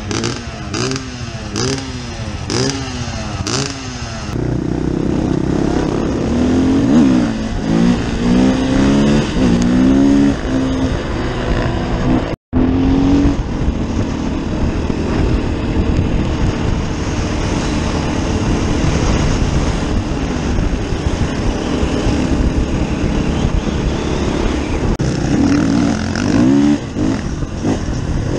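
Engine revved in a quick run of blips, about one and a half a second, for the first few seconds. Then dirt bike engines are heard while riding, the pitch climbing and dropping as the bike goes up through the gears, with a brief dropout about twelve seconds in and another climb in revs near the end.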